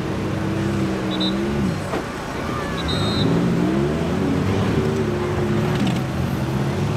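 Demolition-derby minivan engines revving, their pitch rising and falling repeatedly as the vans accelerate and back off; more than one engine is heard at once.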